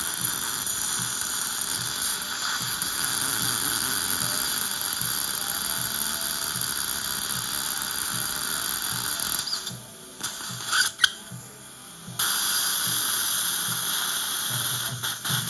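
Dental surgical suction tip hissing steadily alongside the water-cooled implant handpiece's irrigation spray while the implant site is drilled. The hiss drops out for about two seconds after the middle, with a click, then comes back.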